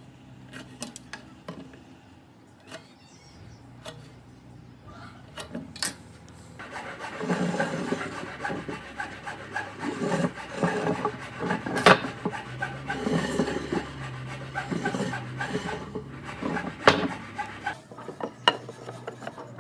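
A hand tool scraping on wood in rapid, repeated strokes, like filing or rasping. It starts about a third of the way in, after a few light clicks and taps, and stops shortly before the end.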